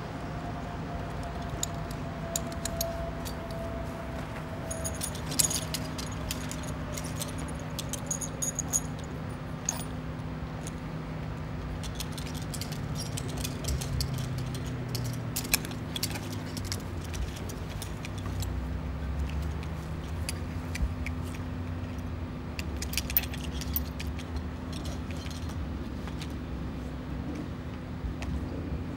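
Metal clinking and jingling of a lineman's climbing gear: belt D-rings, snaps and steel climbers knocking together as he buckles them on and straps to the pole. Underneath is a steady low drone of idling utility trucks.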